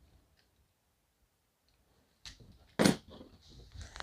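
Quiet for about two seconds. Then comes a light tap and, a moment later, a single sharp clack, the loudest sound. After it, thin plastic wrap crinkles as it is pulled off a hatchet.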